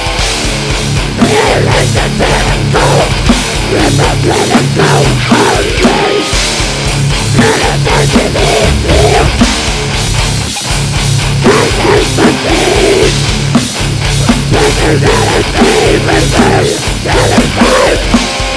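Heavy metal song playing loud: pounding drum kit over heavy distorted guitars.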